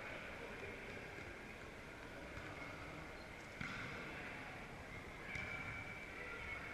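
Faint murmur of a crowd in a sports hall, with a sharp hit about three and a half seconds in and a weaker one near the end, a volleyball being struck during a sitting volleyball rally.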